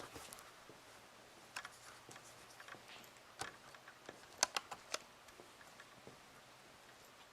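Scattered faint sharp clicks and ticks, with a quick cluster of four about four and a half seconds in, over low room hiss.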